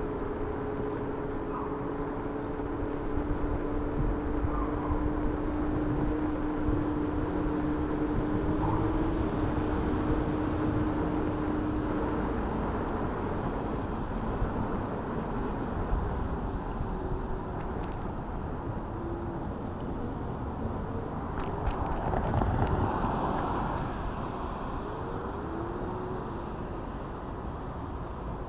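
Steady rumble and wind noise of an electric scooter riding on city streets, with a low two-note hum that stops about twelve seconds in and a few light clicks later on.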